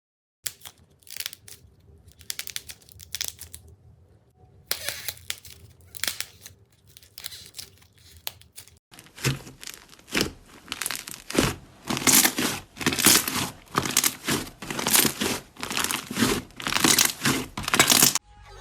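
Slime being pressed and worked by hand, giving crackling, crinkling sounds. About halfway through it becomes louder, with squishing bursts about twice a second.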